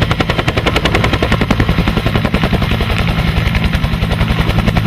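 Helicopter sound effect: fast, even rotor chopping, about a dozen beats a second, over a steady low engine hum.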